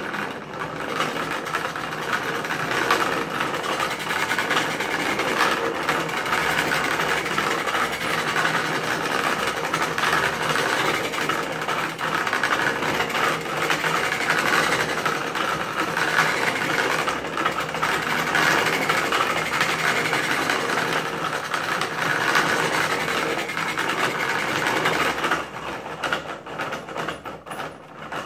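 Homemade hand-cranked grinder running: five wooden gears stepping the crank up 22.5 times to spin the grinding wheel while a plane iron is ground on it, a steady mechanical grinding noise with fast rattling clicks. It stops about three seconds before the end.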